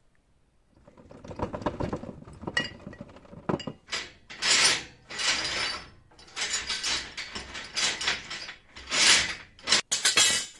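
Foley prop worked by hand, making rapid ratchet-like mechanical clicking that starts about a second in, then a series of separate rasping bursts, the loudest near the middle and just before the end.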